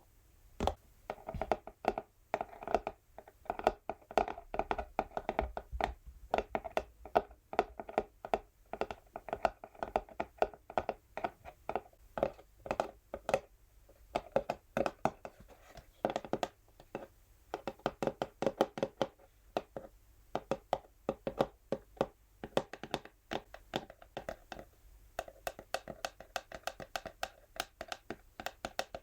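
Natural fingernails tapping quickly on an empty textured cardboard box, an uneven stream of several taps a second.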